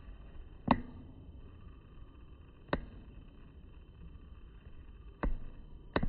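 Four sharp knocks or clicks, one under a second in, one near three seconds and two close together near the end, over a steady low background hiss.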